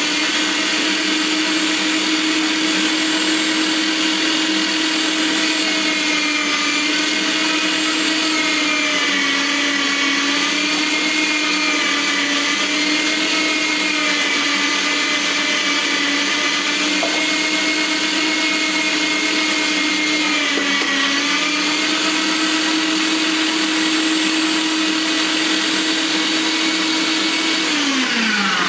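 HOMGEEK electric meat grinder's motor running steadily while grinding carrots, a strong whine whose pitch sags slightly a couple of times as carrots are pushed through the grinding head.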